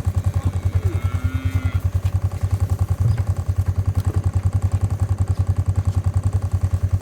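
A small engine idling steadily, with a regular low chug of about ten beats a second.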